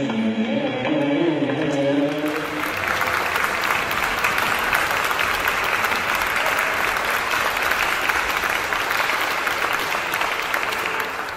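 Sung music ends about two seconds in and gives way to steady audience applause, which fades out near the end.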